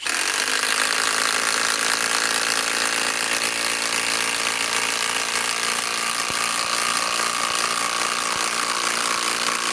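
Master Force Boost 20-volt impact driver hammering steadily without pause as it drives a 5-inch lag screw.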